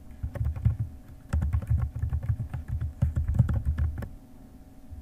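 Rapid typing on a computer keyboard: a quick run of keystrokes, a short pause about a second in, then a longer run that stops about four seconds in.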